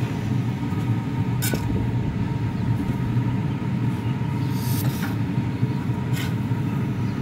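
A metal spatula scraping and knocking on a steel griddle a few times as English muffins are flipped, over a steady low rumble.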